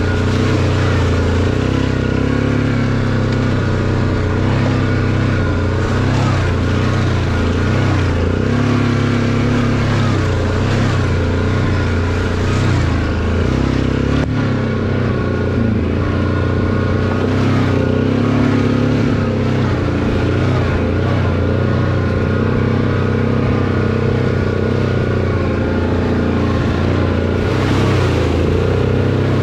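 ATV engine running under way, heard from the rider's seat. It runs steadily at a loud level, and its note shifts a few times with the throttle, most clearly about fourteen seconds in.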